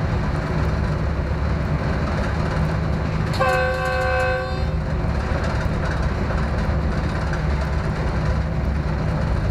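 Train running with a steady low rumble, and its horn sounding once, held for just over a second, about three and a half seconds in.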